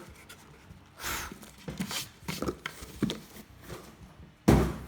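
A wooden box and its packaging being handled: scattered rustles and small knocks, then a single loud thump near the end.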